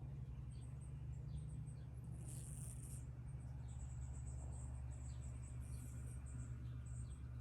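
A sleeping domestic cat snoring softly: two hissy breath sounds about two seconds in and near six seconds, with faint high ticks between them.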